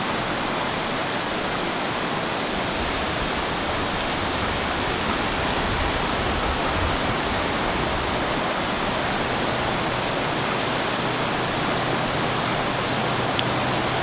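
Steady rushing of a river's white-water rapids, an even roar with no gaps.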